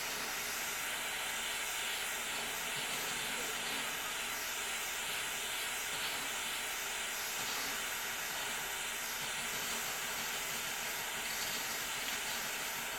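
Jeweller's soldering torch flame hissing steadily while heating a sterling silver ring to flow easy solder paste.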